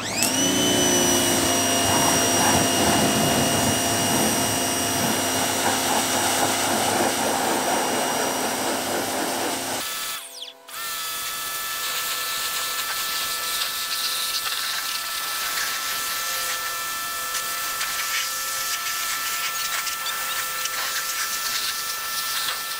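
Greenworks electric pressure washer starting up with a brief rising whine, then running with a steady high whine from its motor and pump over the hiss of the water jet hitting the truck. About ten seconds in it cuts out for under a second, then starts again and runs steadily.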